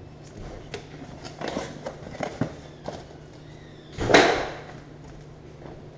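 Unpacking noises: a plastic anti-static bag and cardboard packaging being handled, with scattered small clicks and crinkles, then one louder rustling scrape about four seconds in as hands reach into the cardboard box.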